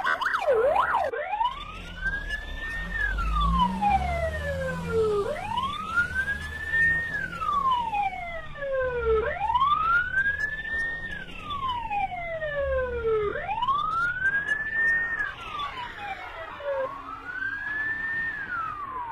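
Police siren wailing, its pitch climbing quickly and then sliding slowly down about every four seconds. A second siren wails faster and fainter behind it, over a low rumble.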